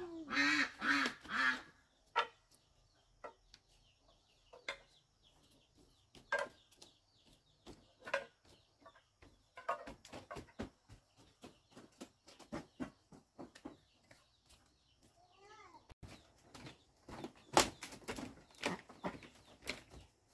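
Duck quacking during the first second and a half, followed by scattered light knocks and clicks, with a short rising-and-falling call about fifteen seconds in.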